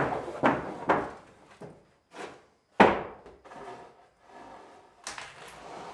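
Long sawn wooden boards knocking and clattering against each other and the plank floor as they are picked up and shifted. Several knocks come in the first second, and the loudest, sharpest clack comes about three seconds in, with another knock near the end.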